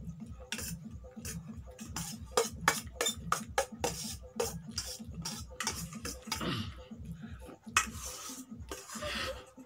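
Metal cutlery clinking and scraping against stainless steel bowls: a fork stirring and lifting noodles in quick, irregular taps.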